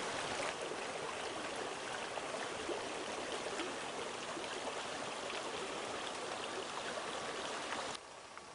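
Flowing water from a stream, a steady rushing sound that cuts off suddenly near the end.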